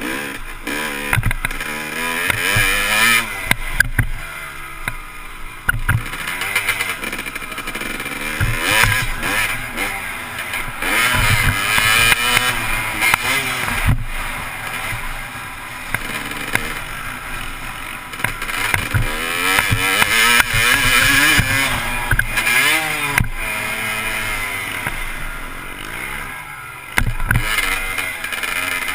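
Motocross bike engine revving up and falling back again and again as it is ridden hard through the gears, heard from a helmet-mounted camera with wind rushing over the microphone. A few sharp knocks come through along the way.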